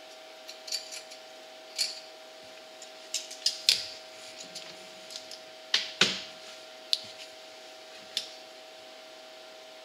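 Irregular metallic clicks and clinks as an exhaust spring is worked onto its hook on an ATV exhaust, about a dozen of them with the loudest about four and six seconds in. A steady faint hum runs underneath.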